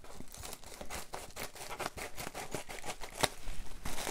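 Scissors cutting open a plastic bubble mailer: a run of short snips and clicks with the plastic crinkling, and one sharper snap about three seconds in.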